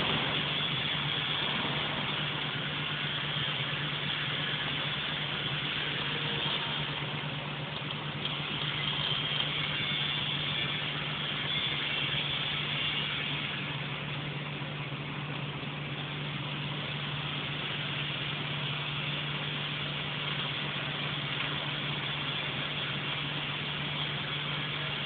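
Welding arc crackling and hissing steadily for a long stretch, over a steady low hum.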